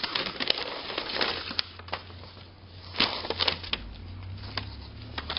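Paper packing material and cardboard rustling and crinkling as hands rummage through a parcel box, in irregular crackly bursts, busiest at the start and again about three seconds in.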